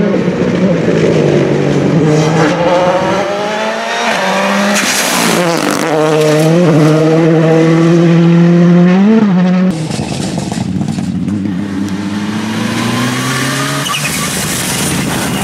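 Ford Fiesta R5 MKII rally car's turbocharged four-cylinder engine accelerating hard toward the camera, its pitch climbing and dropping back with each upshift. About ten seconds in it cuts off suddenly and a second rally car, a Mitsubishi Lancer Evolution, is heard accelerating, quieter, its engine pitch climbing steadily.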